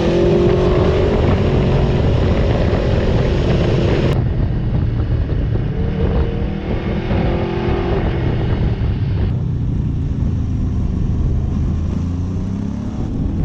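Motorcycle engine running and rising in pitch as it accelerates, with wind rushing over the microphone, as picked up by GoPro action cameras' built-in microphones. Three short recordings play back to back, and the sound changes abruptly about four and nine seconds in.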